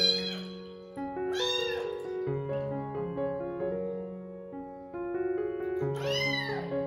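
A young kitten meowing with high cries while being bathed: a cry right at the start, a couple more about a second and a half in, and another run near the end. Soft piano background music plays underneath.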